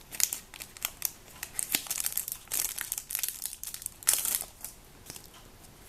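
Crinkling and crackling of foil trading-card packet wrappers being handled and opened, in quick irregular snaps that die down about four and a half seconds in.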